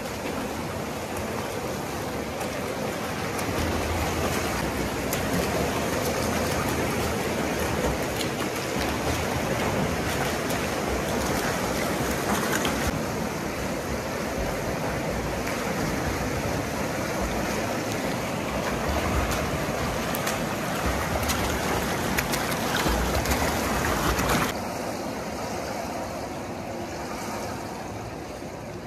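Swimmers splashing through front crawl in a pool, a steady wash of water noise from their arm strokes and kicks. It drops off abruptly about 24 seconds in.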